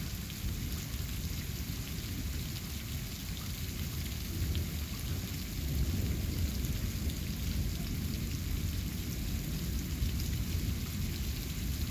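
Steady rain falling during a thunderstorm, with a low, continuous rumble of thunder underneath that grows a little louder about halfway through.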